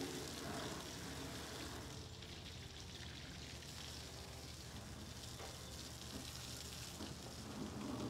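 Water spraying from a hose against the steel wheel and frame of a backhoe, a steady hiss, with a low steady hum underneath.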